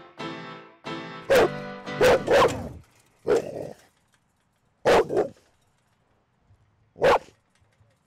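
Pit bull barking: about six single, loud barks, the first few close together and the last two spaced a couple of seconds apart.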